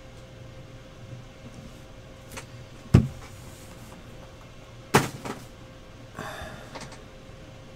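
Two sharp knocks on a desktop about two seconds apart, the first the louder, as cards and boxes are set down. A few light clicks and a short rustle of handling follow near the end.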